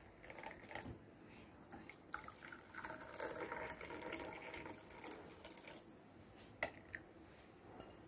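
Hot tea poured from a saucepan into two ceramic cups, a faint trickle filling first one cup and then the other, the second pour the louder. A single short knock near the end.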